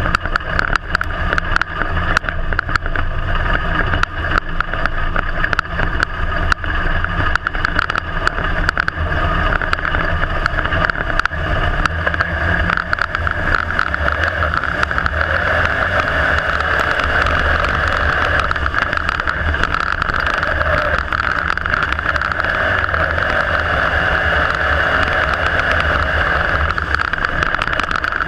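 IMCA Modified dirt-track race car's V8 engine running hard at racing speed, heard from inside the cockpit with wind noise. Many sharp clicks and knocks through the first half give way to a steadier drone.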